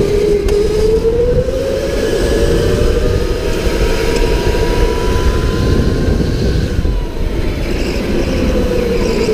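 Electric indoor go-kart motor whining at speed, its pitch sagging in the corners and climbing again as the kart accelerates, over a steady low rumble.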